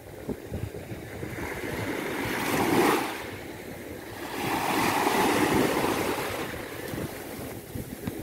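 Sea waves breaking on a sandy beach, with the surf swelling twice: once rising to a peak about three seconds in and falling away quickly, then again in a longer, broader surge around the middle.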